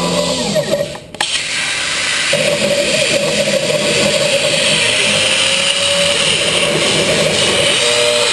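CNC plasma cutter: near the start a machine whine rises, holds and falls as the torch sits idle over the sheet. About a second in the plasma arc strikes with a click and then cuts through the metal sheet with a steady, loud hiss.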